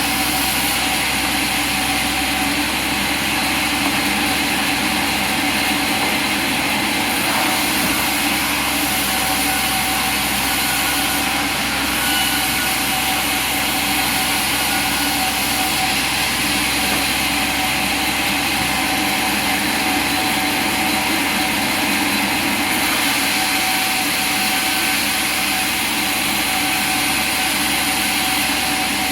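Sawmill machinery running steadily, a continuous mechanical hum with a few held whining tones and no distinct cuts or impacts.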